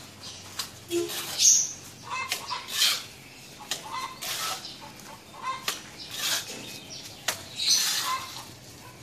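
Repeated scraping strokes of a plastering trowel worked across a cement-rendered wall, each stroke short and irregularly spaced, roughly one or two a second.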